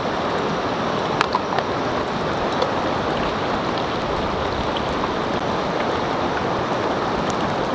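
Butter melting and sizzling in a hot cast iron skillet: a steady hiss with a few small scattered pops.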